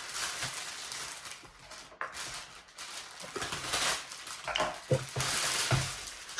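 A clear plastic bag crinkling and rustling in uneven stretches as it is worked off a hard carrying case, with a couple of light knocks of the case near the end.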